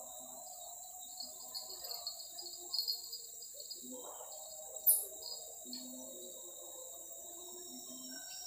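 Forest insects, crickets among them, keep up a steady high-pitched drone with bursts of rapid chirping over the first half. About five seconds in there is one sharp click, the loudest sound here.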